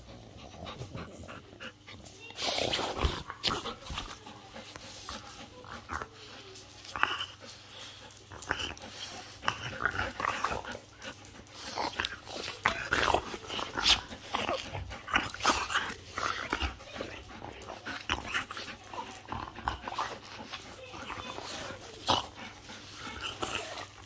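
French bulldog growling in short, irregular bursts while play-biting a person's hand.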